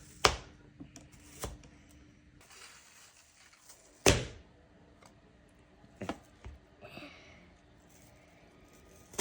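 A child's crinkle cutter chopping through a tomato, each cut ending in a sharp thunk: about six separate chops at uneven intervals, the loudest about four seconds in and at the very end.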